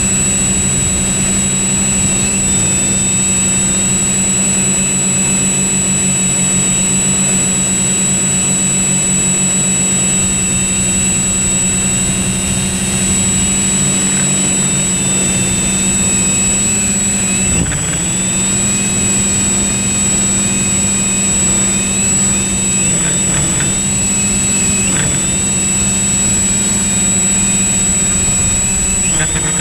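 Quadcopter drone's electric motors and propellers whining steadily in flight, heard close up as from the drone's own microphone, with a constant high whistle above. The pitch dips briefly a few times as the motors change speed, most clearly about 18 s in and just before the end.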